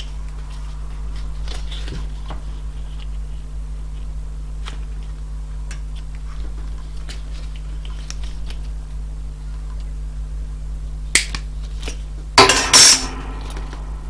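Small flush side cutters handled and snipping heat-shrink tubing: faint clicks, a sharp click, then a loud double snap near the end, over a steady low hum.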